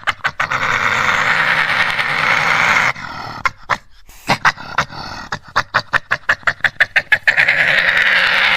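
Badger growling with a harsh, noisy rasp, broken in the middle by a run of rapid clicking chatter at about five clicks a second, then growling again near the end.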